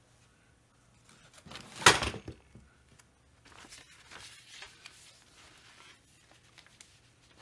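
Small parts and tools handled on a workbench: a short rattle that builds to one sharp knock about two seconds in, then scattered light clicks and rustling.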